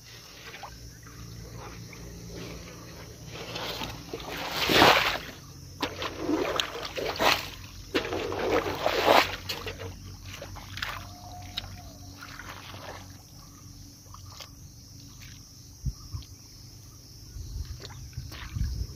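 Bare hands sloshing and splashing through a shallow puddle of muddy water, feeling for fish, with a run of louder splashes about five to nine seconds in.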